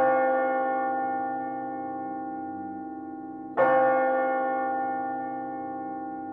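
Church bell tolling in a recorded song's intro. A strike rings on and fades, and a second strike comes about three and a half seconds in, ringing out slowly with many overtones.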